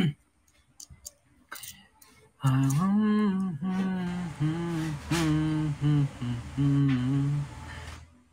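A man humming a short tune in held notes, starting about two seconds in and stopping shortly before he speaks again.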